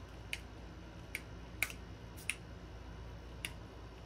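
Small shimmer-spray mist-pump bottle being pressed five times at uneven intervals, each press a short, sharp spritz.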